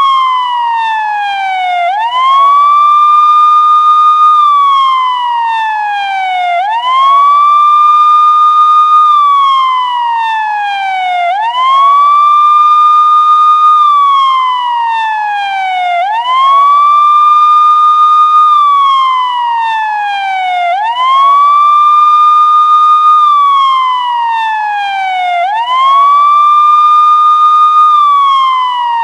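Electronic police siren sounding a slow wail: the tone sweeps quickly up, holds high for about two seconds, then slides steadily down, repeating roughly every four and a half seconds.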